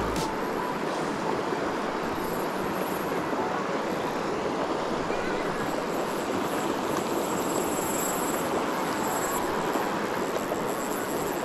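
Steady rushing of river water flowing through a shallow stretch.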